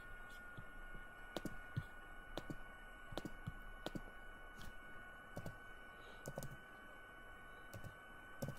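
Faint, irregular light clicks, about two a second, over a faint steady high whine.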